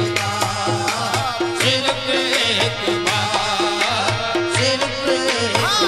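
Qawwali music: tabla keeping a steady, repeating beat under wavering sung lines, with hand claps.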